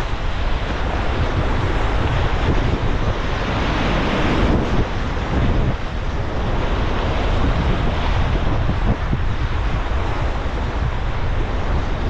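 Steady rush of river whitewater around a packraft, with wind noise on the microphone.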